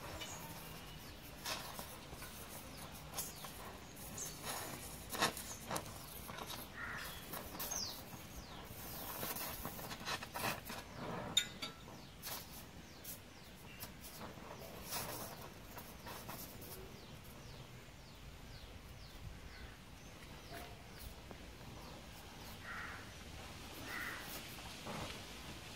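Gas welding torch on a motorcycle silencer pipe giving a faint steady hiss, with scattered sharp clicks, while birds call faintly, including crow-like calls.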